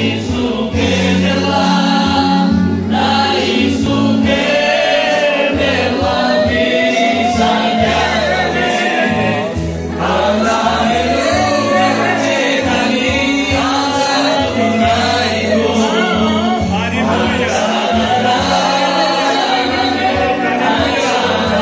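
Congregation singing a Romani worship song together, led by a man singing into a microphone through a PA speaker, over sustained electronic keyboard chords.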